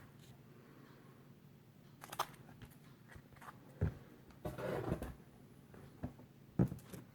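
Bagged comic books being handled: a few short rustles and taps of plastic comic bags and backing boards over quiet room tone, the sharpest near the end.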